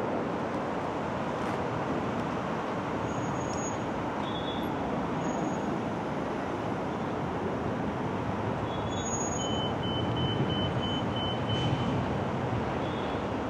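Steady rumble and hiss of airliner jet engines at taxi power, swelling slightly about ten seconds in.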